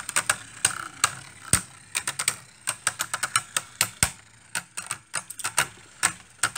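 Two Hasbro Beyblade Burst spinning tops clashing in a plastic stadium: rapid, irregular clicking as they knock together, with two harder hits about one and a half and four seconds in.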